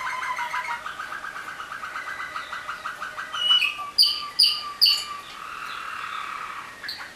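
Waterslager (Malinois) song canaries singing: a fast run of repeated notes, about ten a second, then three loud, sharp notes about half a second apart a little past the middle, then a steady trill.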